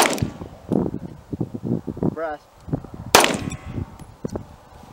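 Two 9mm pistol shots from an EAA Girsan Regard MC, one at the start and a second about three seconds later, each a sharp crack with a short echo.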